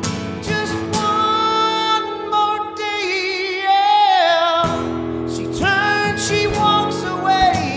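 Live acoustic song: a singer holding long, wavering wordless notes over acoustic guitar, with a long note sliding down about four seconds in.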